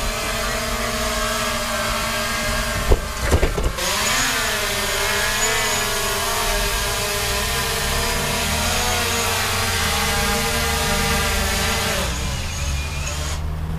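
A DJI Mavic Pro quadcopter on its standard propellers, hovering close by and humming, its pitch wavering and bending as the motors change speed. There are a few sharp knocks about three seconds in. The hum stops about twelve seconds in as the drone is caught by hand and its motors spin down.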